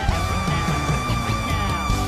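Instrumental theme music for a TV show's opening titles, with a long held high note over a low beat.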